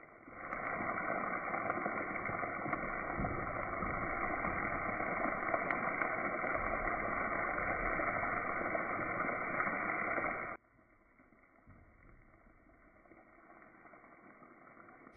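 Chopped onions frying in hot oil in a pan: a steady sizzling hiss with a few faint pops that cuts off abruptly about ten seconds in, leaving only a faint hiss.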